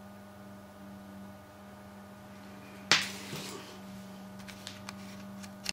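A circuit board being handled over a cardboard box: one sharp click about three seconds in, then a few faint ticks near the end, over a steady low hum.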